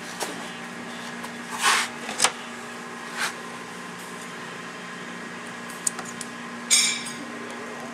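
A rubber door seal being handled and trimmed with cutters: a few short scrapes and rustles, with a stronger cut-like scrape near the end, over a steady low hum.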